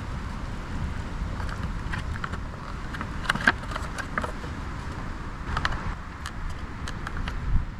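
Wind rumbling on the microphone, with scattered light clicks and clinks of small objects being handled.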